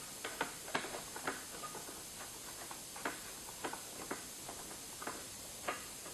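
Scattered sharp metal clicks and taps from M5 screws being tightened with a hand tool into a TV wall mount. The clicks come several in the first second or so, then a few at a time with gaps between.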